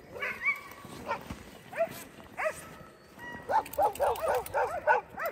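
Harnessed sled dogs barking and yelping: a few separate high barks, then a quick run of about three barks a second in the second half.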